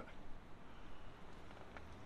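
Quiet background with a faint single click near the end, as a wrench is fitted to a bolt on the trailer's swing arm.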